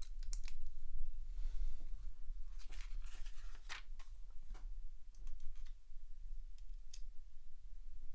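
LEGO plastic pieces clicking and rattling as they are handled, pulled apart and pressed together: scattered sharp clicks with a quick cluster around the middle and a short rustle about a second and a half in, over a low steady hum.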